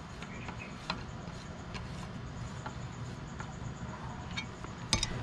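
A few faint, irregular metallic clicks from a socket wrench turning the bolts of a Rusi Classic 250's front brake caliper bracket, snugging them lightly rather than fully tightening, with a sharper click near the end over low background noise.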